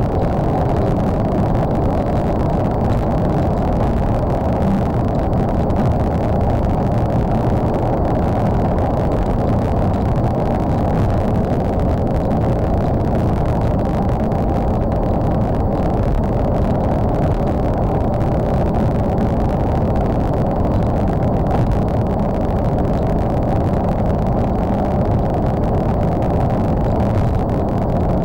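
Steady wind, tyre and engine noise of a Mercedes-Benz C63 AMG cruising at about 200 km/h, heard from inside the car.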